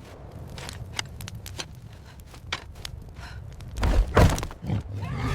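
Scattered light clicks and knocks over a low rumble, then several heavy thuds near the end.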